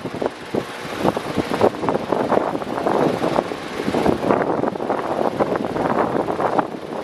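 Electric fan running, its airflow buffeting the microphone in an uneven, fluttering rush.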